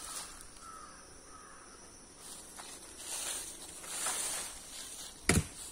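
A crow cawing a few times, with short arched calls, over outdoor background noise. A single sharp thump comes near the end.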